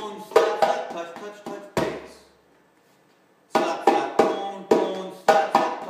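Djembe played with bare hands: a quick run of ringing slap and tone strokes that ends on a deep bass stroke, a pause of about a second and a half, then the phrase starting again about three and a half seconds in.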